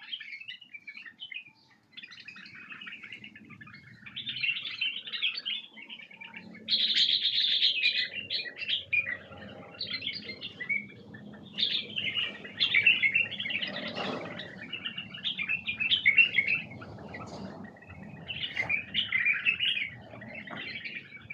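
White-cheeked bulbuls giving busy, chirping calls in repeated bursts, the kind of wild-bulbul calls keepers use to stir up a newly caught bulbul.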